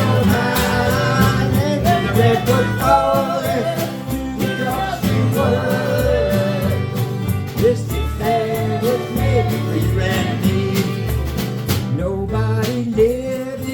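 Live country-folk band music: guitar over a steady pulsing bass beat, with a melody line carried on top.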